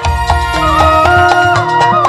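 Loud folk-style music: a melody line sliding between held notes with quick trills, over steady drumming and a bass.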